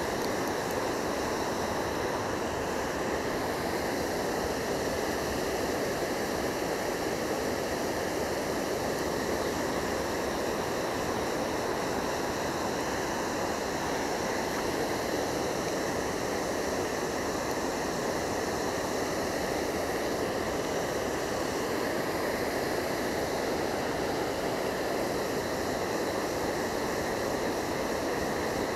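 Water pouring over a low concrete river weir: a steady, unbroken rush.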